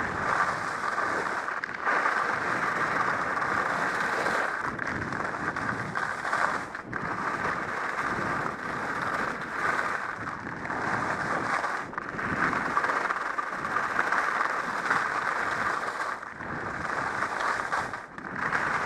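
Volkl Kink skis sliding and scraping over firm, chunky snow, a steady rasp that swells and eases with the turns and breaks off briefly several times.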